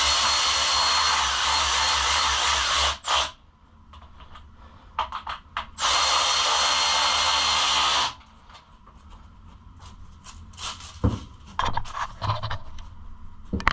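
Power drill running in two steady spells, about three seconds and then about two seconds, backing the bolts out of newly fitted plastic fenders. Small clicks and handling knocks follow between and after the runs.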